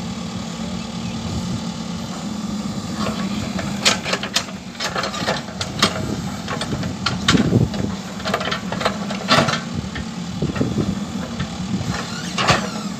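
Mahindra EarthMaster VX backhoe loader's diesel engine running steadily while the backhoe digs, with irregular sharp clanks and knocks from the arm and bucket starting about four seconds in.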